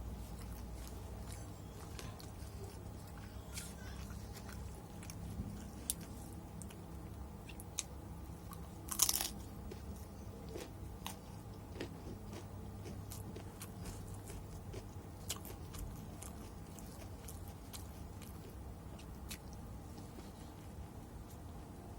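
Close-miked chewing and biting of fried chicken with sambal matah, with scattered crisp crunches and one louder crunch about nine seconds in.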